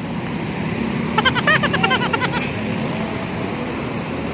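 Steady hum of heavy road traffic on a busy multi-lane avenue below. About a second in, a quick run of short, high chirping tones, several a second, lasts just over a second.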